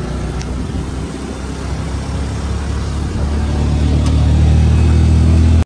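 A motor vehicle engine running with a steady low hum that grows louder from about three seconds in, then cuts off suddenly.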